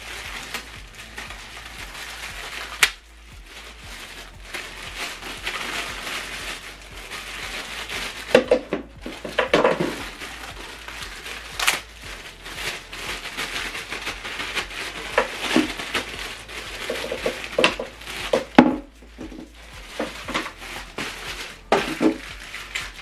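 Plastic packaging being handled and crinkled, with irregular rustling and scattered clicks and knocks as small accessories are unwrapped.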